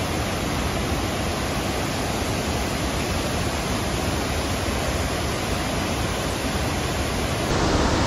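Steady rush of a waterfall pouring into a plunge pool, an even wash of water noise without a break.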